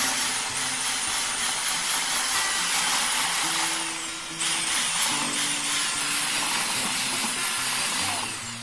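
Corded electric drill with a paddle mixer running at speed in a bucket of thin mix: a steady motor whine. It dips briefly about four seconds in, then winds down with a falling pitch near the end as the motor is switched off.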